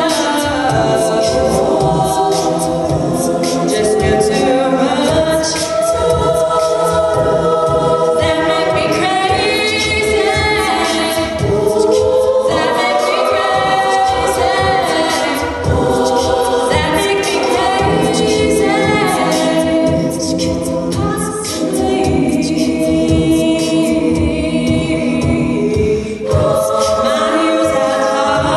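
All-female a cappella group singing through handheld microphones: a lead voice over backing harmonies, with a steady beat running under them.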